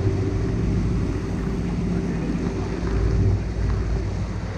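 Bass boat's outboard motor running steadily at speed, with water rushing and spraying along the hull and wind on the microphone.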